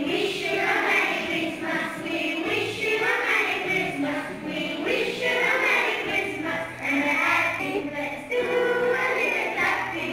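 Background music with choral singing: several voices holding and moving between sustained notes.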